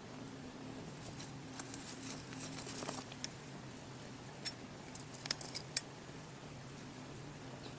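Scattered light clicks and ticks in two short clusters over a low, steady hum.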